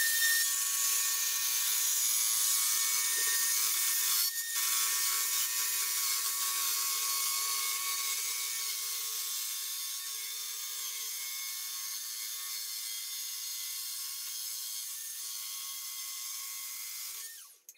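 Makita HS301D CXT cordless circular saw spinning up and cutting through birch plywood: a steady high motor and blade whine over the rasp of the cut, with a brief drop about four seconds in. Near the end the whine falls away as the blade spins down and stops.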